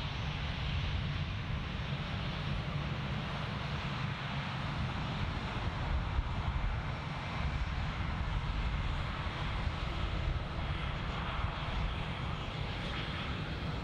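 Air France Airbus A319's twin jet engines running at low taxi power as the airliner rolls slowly past: a steady rumble and hiss.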